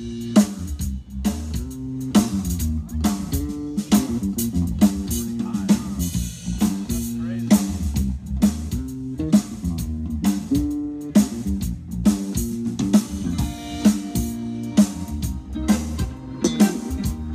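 Live band playing through a large outdoor PA of line-array speakers and subwoofers: electric bass and guitar lines over a drum kit with a steady beat.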